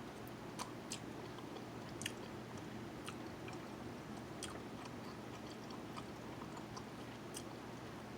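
A person chewing and biting jerk chicken close to the microphone: faint, scattered clicky mouth sounds over a steady low hum.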